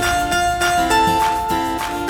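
Background music led by plucked strings, light guitar-like notes over a steady picked rhythm.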